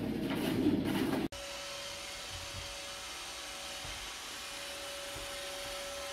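Robot vacuum cleaner running with a steady whine over a hiss. Before it, a louder stretch of low, busy noise cuts off abruptly about a second in.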